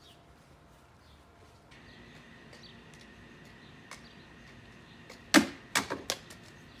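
Quiet outdoor background, then about five seconds in a quick run of five or so sharp knocks from juggled balls.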